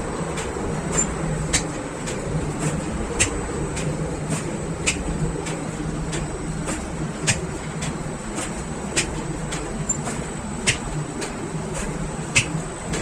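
Bakery machinery running with a steady low hum and a thin high whine, with sharp clicks and knocks at uneven intervals, about one every second.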